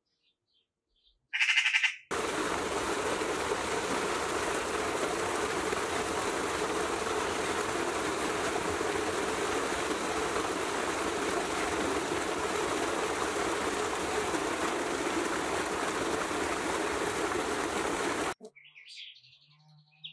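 Steady rush of a small waterfall pouring onto rocks into a pool. It starts about two seconds in and cuts off suddenly near the end. Just before it comes a bird's short, loud call, and faint bird chirps are heard at the start and near the end.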